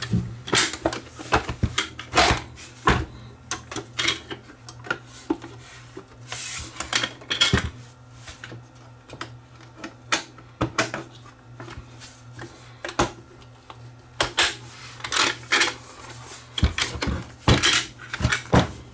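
Metal case and red battery base of a vintage General Electric portable radio being handled and fitted back together: irregular metallic clicks, clanks and knocks in short clusters.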